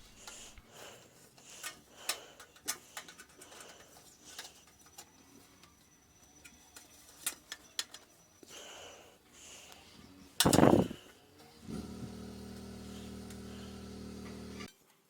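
Scattered light metallic clicks and taps as a hand puckering (tucking) tool is worked along a sheet-metal edge. About ten seconds in there is a louder knock, then a steady hum for about three seconds that cuts off suddenly.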